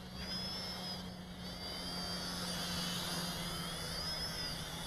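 Small toy quadcopter's motors and propellers whining, the pitch wavering up and down as the drone yaws and pitches in flight, over a steady low hum.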